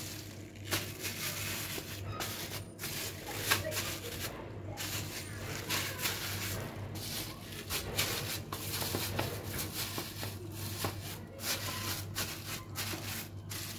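Thin plastic freezer bags filled with tomato pulp rustling and crinkling as they are handled and pressed into a plastic container, over a low steady hum.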